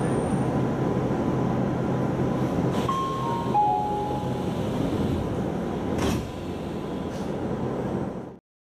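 Japanese electric train's sliding passenger doors closing. A short descending three-note chime about three seconds in, then the doors shut with a single thump about six seconds in. Over a steady hum, which is quieter after the doors close.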